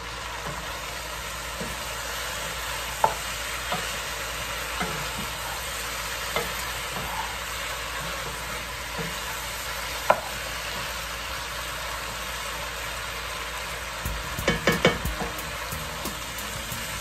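Vegetables frying with a steady sizzle in a hot pan while a wooden spoon stirs them, the spoon knocking now and then against the pan. Near the end comes a quick run of several knocks.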